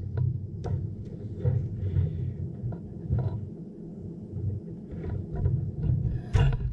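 Close-up handling noise as hands work a wire and rod through a PVC pipe cap on an antenna loading coil: uneven low rumbling and knocking, with small clicks and a sharper, loudest click near the end.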